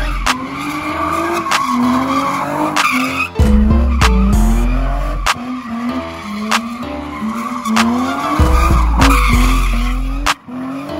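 A car spinning donuts, its engine revving and tyres screeching on the pavement, over hip-hop music with a heavy repeating bass and a steady beat. The tyre and engine noise drops away near the end, leaving the music.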